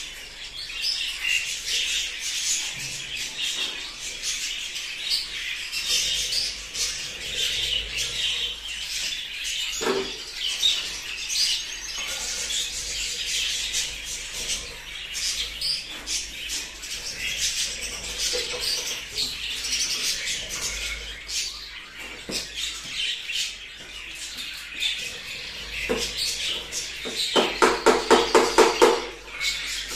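Many budgerigars chirping and chattering continuously. Near the end, a quick run of about ten loud, evenly spaced strokes stands out above them.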